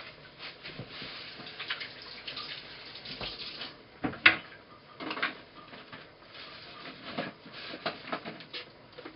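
Kitchen tap running into a stainless steel sink for about three and a half seconds, then a sharp click as a wall cabinet door is opened, followed by scattered light knocks of things being moved about inside the cabinet.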